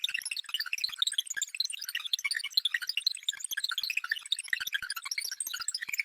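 Synthesized sci-fi data-transfer sound effect: a rapid, unbroken stream of short high electronic beeps and blips at jumbled pitches, with no low end.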